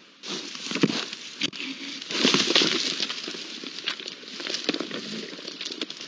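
Wild boar moving close to the microphone over dry, stony ground: a sudden onset of rustling and crunching with many sharp crackles and scuffs, loudest about a second in and again between two and three seconds.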